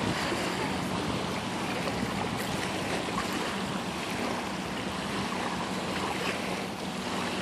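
Steady shoreline ambience: small river waves washing on the sand and rocks, with a faint low hum running steadily underneath.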